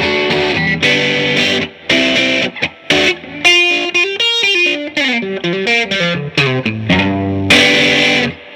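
1957 Gibson ES-225TD electric guitar on its middle pickup setting, played through an Allston guitar amp with the bass all the way down, the treble all the way up and a touch of reverb. Strummed chords, then a run of single notes, ending on a chord that stops just before the end.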